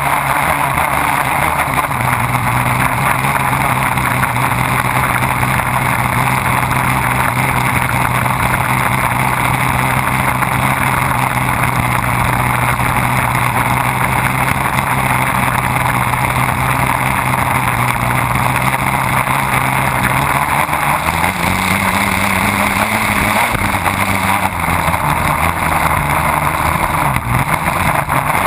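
Midnight Miss race boat's engine running hard at speed, under the steady rush of water spray thrown off behind the boat. About two-thirds of the way through, the engine note climbs and then drops back a few seconds later.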